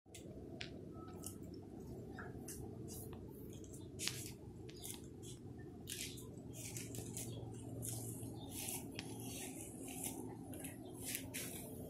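A cat chewing and lapping wet food from a bowl: irregular small wet clicks and smacks, thickest in the second half, over a steady low hum.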